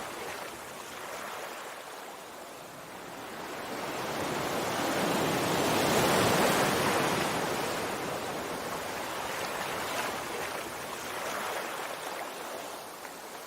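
Sea waves washing in: a wave of surf hiss that builds for a few seconds, is loudest about six seconds in, then ebbs back into the steady wash of the sea.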